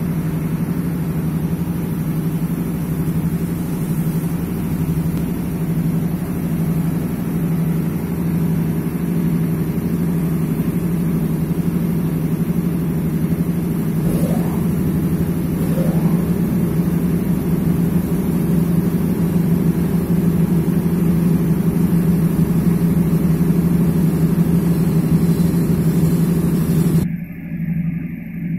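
A machine running with a steady low drone, like an engine. Near the end it drops away abruptly.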